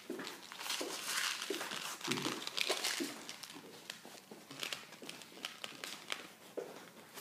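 Crinkly packaging being opened by hand: an irregular run of crackling and rustling.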